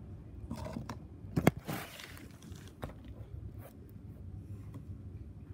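Handling noise from hands moving the recording phone: a sharp knock about a second and a half in, a short scrape right after, then a few light clicks.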